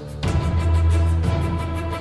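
Dramatic background music with deep bass and a fast, steady pulse, swelling louder about a quarter second in.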